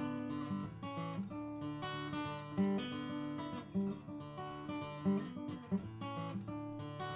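Steel-string acoustic guitar played solo fingerstyle: plucked melody notes ringing over sustained bass notes, with no voice.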